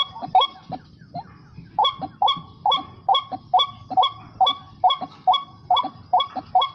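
White-breasted waterhen calls played as a lure from a remote-controlled speaker: a short 'kwak' note repeated monotonously about twice a second, with a break of about a second early on before it resumes.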